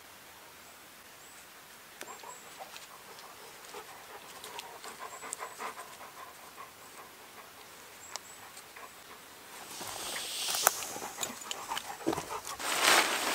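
Paracord being tied around a conifer branch: light rubbing and scattered small clicks of cord on bark and twigs, with louder rustling bursts near the end.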